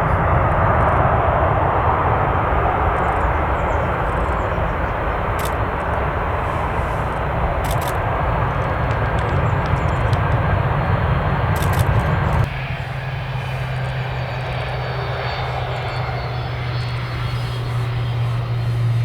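Airliner engines running loud and steady as an aircraft passes on the runway. About twelve seconds in the sound changes abruptly to another steady engine noise with a strong low hum.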